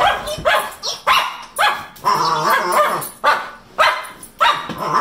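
A dog barking in a quick series of short barks, about eight of them, each one falling in pitch.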